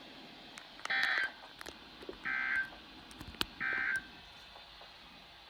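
Emergency Alert System end-of-message signal: three short, identical bursts of harsh, high, buzzing data tones, each about half a second long and about 1.4 s apart, marking the end of the alert. A brief click falls between the second and third bursts.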